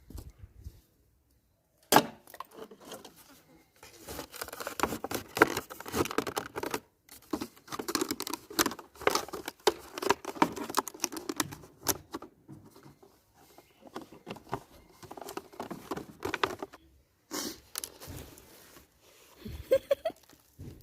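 Rapid, irregular clicking, tapping and crinkling of a plastic bottle feeder, with a sharp knock about two seconds in.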